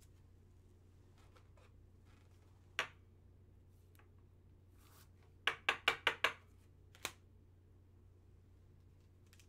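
A trading card being handled in a rigid clear plastic card holder: one sharp click, then a quick run of about six clicks and taps, and a last tap. A faint steady hum sits underneath.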